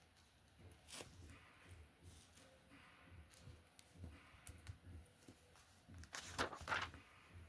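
LEGO pieces being handled and snapped together: scattered small clicks, with a louder flurry of plastic clicking and rattling a little after six seconds in.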